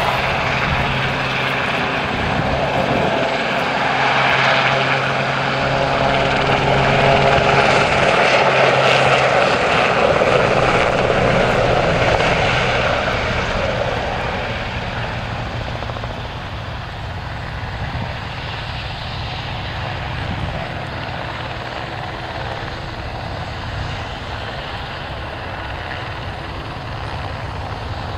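RAF Westland Sea King helicopter flying past: its rotors and turbine engines grow louder, are loudest around eight to twelve seconds in, then fade after about fourteen seconds as it moves away.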